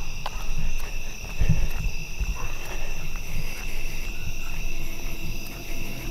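Steady night chorus of crickets, several high even tones at once, over low rumbling and thumps from a handheld camera being carried.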